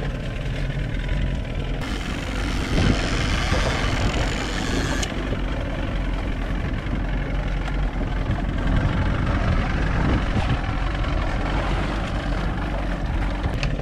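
Evinrude 88 outboard motor running steadily, mixed with wind and water noise as the boat moves. The hiss is stronger for a few seconds near the start.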